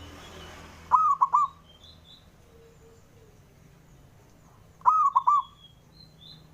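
Male zebra dove (perkutut) cooing: two short phrases of about three quick notes each, roughly four seconds apart, with faint chirps of other small birds behind.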